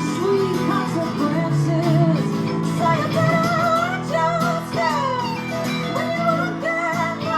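Music: a song with guitar and a wavering, bending melody line over sustained low notes, with no clear words.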